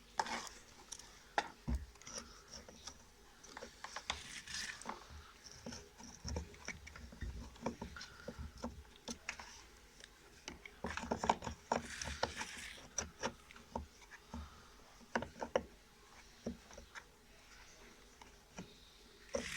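Scattered clicks, taps and light knocks of metal and plastic washing machine gearbox parts being handled and fitted by hand, busier in two spells about four seconds in and about eleven seconds in.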